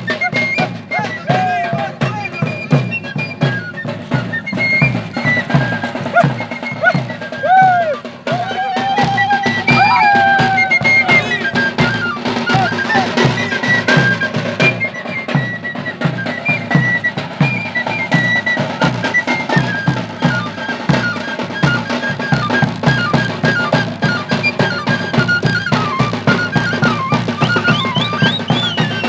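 Traditional folk music for dancing: a steady drum beat under a high, held melody, likely a flute or pipe, with some gliding voices in the first half.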